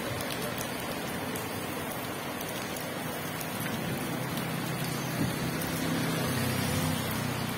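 Chicken satay sizzling over a long charcoal grill as it is fanned with woven bamboo fans: a steady crackling hiss. A low hum joins about halfway through.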